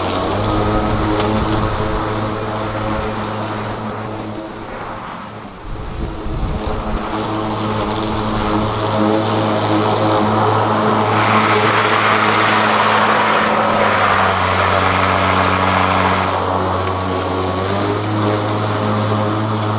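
STIHL RMA 510 V battery lawn mower running with a steady motor-and-blade hum while cutting thick grass, a brighter hiss swelling twice in the second half. Wind buffets the microphone about four to seven seconds in.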